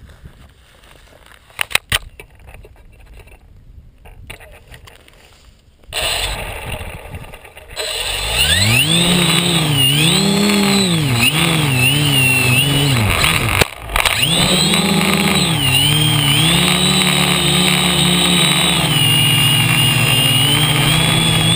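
Quadcopter electric motors and propellers starting up: a few quiet seconds with a couple of clicks, then a loud buzzing whine that rises and falls in pitch as the motor speed changes. The sound drops out for a moment about two-thirds of the way through.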